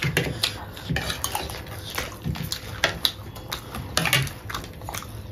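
Spoons scraping and clicking against plates as chatpate, a puffed-rice snack, is scooped up. The clicks come in short, irregular bursts.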